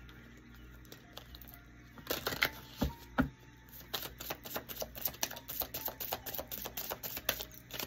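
Tarot cards being handled and shuffled: a run of quick, sharp clicks and taps, several a second, starting about two seconds in, over faint background music.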